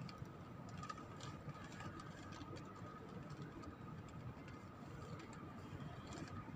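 Faint, steady distant city hum: a low rumble with a thin high steady whine and a few light clicks.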